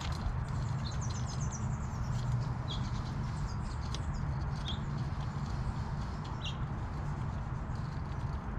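Birds chirping in short, high calls every second or two, with a quick run of falling chirps about a second in, over a steady low outdoor rumble. Faint clicks from ground squirrels gnawing seeds and nuts.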